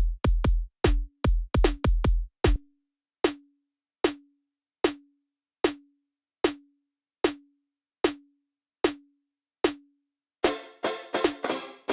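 Electronic drum sounds synthesized in Kilohearts Phase Plant: a fast pattern of deep kick hits for the first couple of seconds, then a single short pitched percussive hit repeating a little more than once a second, and near the end a denser, fast run of pitched notes.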